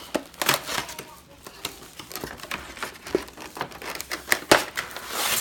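Cardboard collector box and its clear plastic tray being opened and handled: irregular crinkling and rustling with sharp clicks and taps, and a longer rustle near the end.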